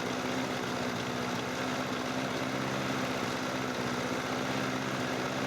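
Pull-start lawn mower's small four-stroke engine running steadily at an even speed. It has just restarted after its carburetor float chamber and drain screw were cleaned.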